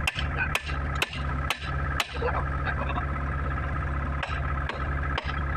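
An engine running steadily at idle. The sound briefly cuts out with a click about twice a second for the first two seconds, and a few more times near the end.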